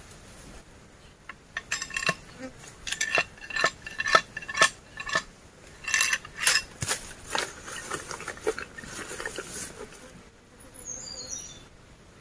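A series of irregular sharp knocks and clinks with a slight metallic ring, a metal blade striking wood and roots in the ground, for about eight seconds. Near the end, a few short, high, falling chirps.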